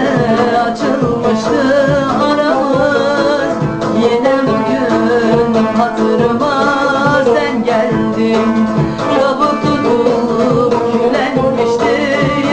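A woman singing a Turkish song, accompanied by a twelve-string cümbüş plucked in quick runs.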